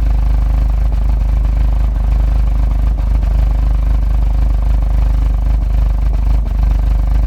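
Car engine idling roughly with a steady low running sound. The rough idle came with fault code P3008 after a service that included a new water pump, pulleys, drive belt and camshaft sensor, and the owner wonders whether it is a misfire.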